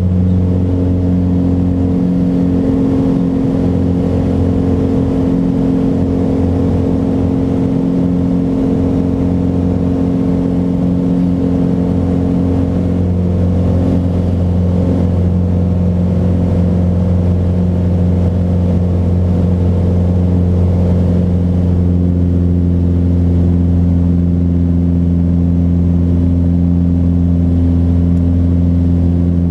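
Mooney M20J's four-cylinder Lycoming engine and propeller droning steadily at climb power, heard inside the cabin just after takeoff. The pitch shifts slightly about halfway through.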